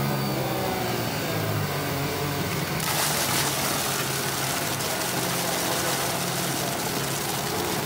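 Onboard sound of a 2014 Lotus Renault Formula 1 car's turbocharged V6 running at low revs as the car slows. About three seconds in, it runs into a gravel trap, and a steady loud hiss of tyres ploughing through the gravel joins the engine.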